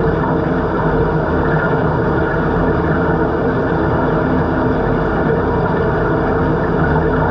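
Steady machine hum heard underwater in a swimming pool: a constant low drone with several steady tones stacked over it and no change in pitch or level.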